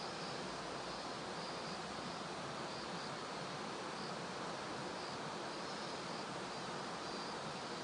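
Kiyotaki River babbling steadily, a shallow stream's even rush of water with no change in level.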